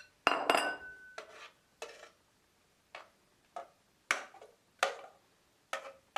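Kitchen bowl and utensil knocking and clinking: about nine sharp, irregularly spaced knocks, the loudest a moment in, followed by a brief ringing tone.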